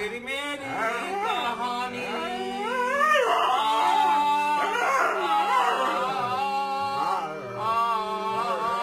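A dog howling along to a harmonium, its howls gliding up and down in pitch over the harmonium's steady sustained notes, with a man singing alongside.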